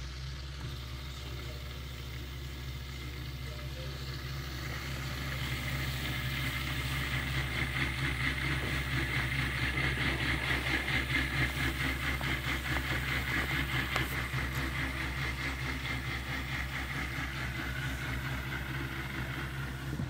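Bosch dishwasher's pump running with water churning and spraying inside the tub: a steady motor hum under a fluttering rush of water that grows louder about a third of the way in and eases a little near the end.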